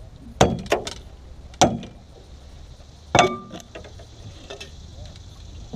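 Sharp metallic knocks and clinks of bowfishing gear and a landing net striking a metal boat's hull while a fish is landed. A quick group of three comes early, one more follows about a second later, and a loud last one comes past halfway. Each has a short ring.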